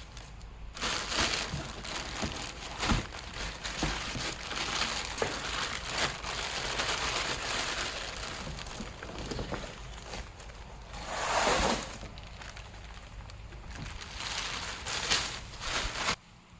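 Packaging being unpacked by hand: irregular crinkling and rustling of wrapping with scattered knocks and handling bumps, swelling louder about eleven seconds in.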